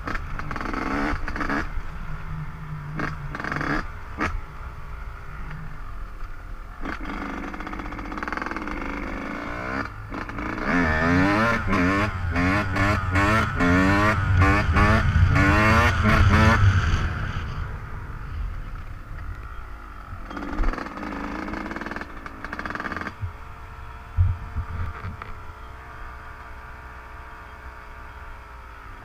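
Dirt bike engine being ridden, its note rising and falling again and again as the throttle is worked, loudest about halfway through, with scattered knocks. Near the end it settles to a quieter, steadier running note.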